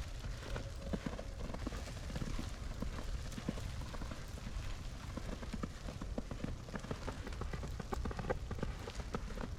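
Footsteps crunching through snow at a walking pace, with a steady low rumble underneath.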